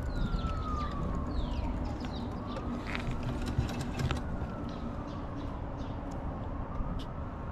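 Emergency vehicle siren wailing, its pitch rising and falling slowly, about one cycle every four seconds, over a steady low rumble of street noise, with a few short bird chirps.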